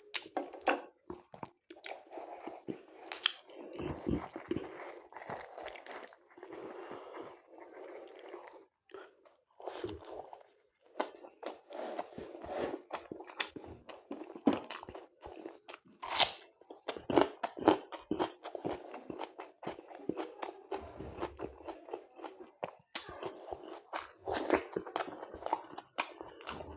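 A person chewing and biting chicken curry with luchi close to the microphone: irregular wet mouth clicks, smacks and crunches.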